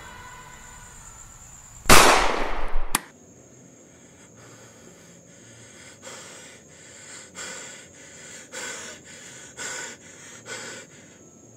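A single loud gunshot bang about two seconds in, ringing for about a second before cutting off sharply. Then comes faint heavy breathing, several ragged breaths, over a steady high hiss.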